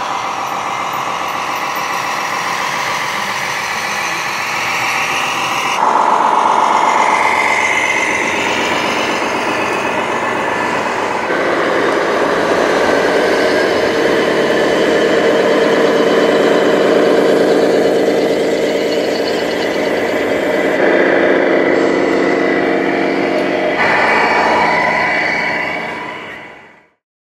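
Engine sounds from radio-controlled model trucks and heavy equipment running, a steady diesel-like drone that changes abruptly several times as one machine gives way to another, then fades out near the end.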